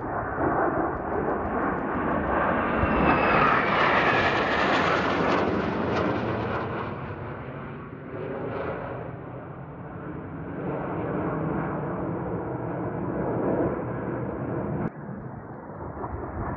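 A formation of Northrop F-5E Tiger II jets flying past, the jet noise of their twin J85 turbojets swelling to a peak with a falling whine a few seconds in, then easing off and building again. The noise breaks off sharply near the end and picks straight up again.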